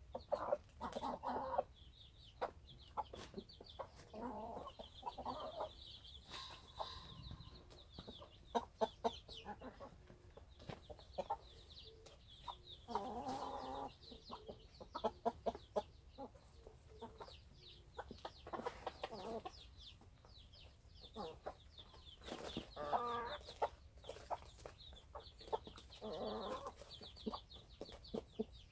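Chickens, Cheonggye hens among them, clucking in short bursts every few seconds, with many sharp taps in between.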